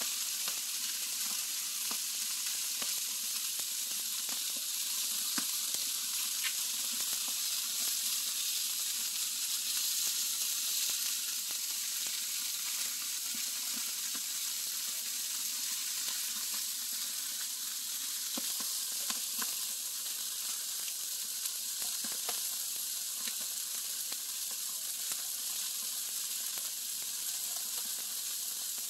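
Chicken wings sizzling on a hot barbecue grill grate. It is a steady high hiss with small pops and crackles scattered through it.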